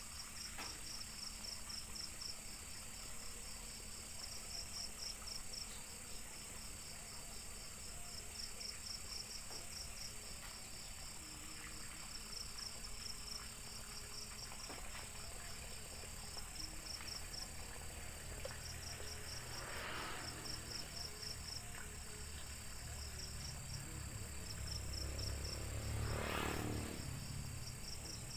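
Crickets chirping at night in repeated trills about a second long, over a steady high insect drone. Twice in the second half comes a louder rustling, shuffling noise.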